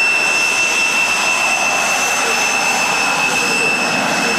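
Fouga Magister's twin Turbomeca Marboré turbojets whining steadily as the jet taxis past on the runway, a high-pitched whine over a rushing noise.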